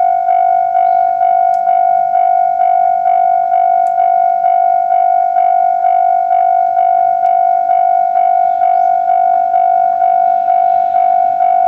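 Japanese railway level-crossing warning bell ringing, a steady electronic clang repeating about twice a second: the crossing is closed for an approaching train.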